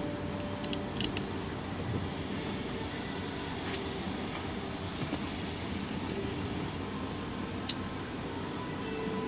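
Steady low rumble of a motor vehicle, with one sharp click near the end.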